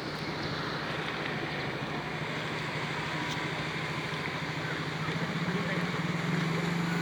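A motor engine running with a steady low hum that grows louder over the last few seconds, over a continuous rushing noise.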